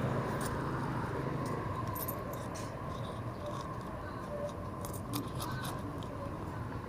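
Low steady hum of an idling vehicle engine, with scattered light clicks.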